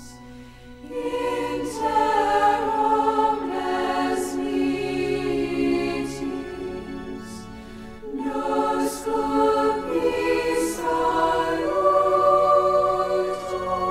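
Choir singing slowly in long, held phrases, with a short break about eight seconds in.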